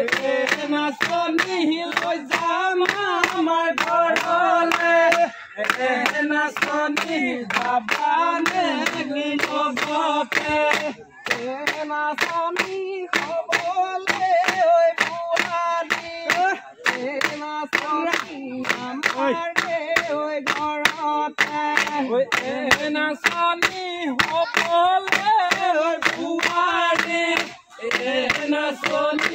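Voices singing a Bihu folk song together, over a steady beat of thin bamboo sticks struck against a long bamboo pole.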